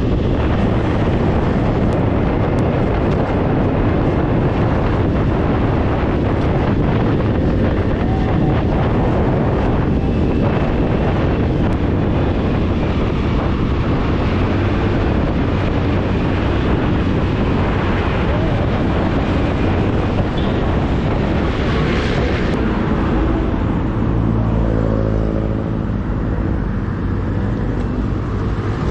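Wind buffeting the microphone over a motorcycle running on the road. In the last few seconds a steady engine hum with a clear pitch comes through.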